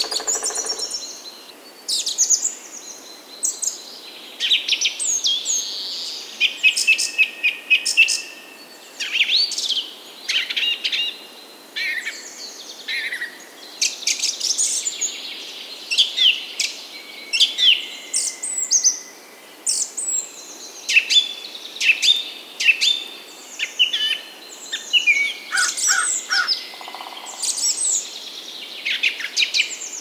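Several songbirds singing at once, with quick overlapping chirps, trills and whistles.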